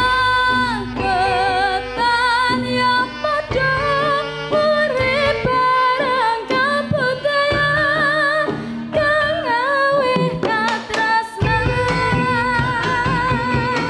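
A woman sings a Javanese melody into a microphone, her held notes wavering with vibrato, over gamelan accompaniment. A few sharp drum strikes come about ten and a half seconds in.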